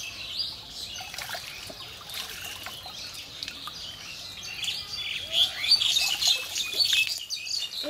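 Small birds chirping and calling, busiest in the second half, over faint water trickling and splashing as a wet cast net is drawn out of a pond.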